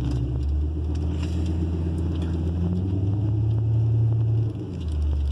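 Ford Excursion's 6.8-litre V10 engine running at low speed, heard from inside the cab. The engine note rises about three seconds in and drops back a second and a half later, with scattered light clicks and taps over it.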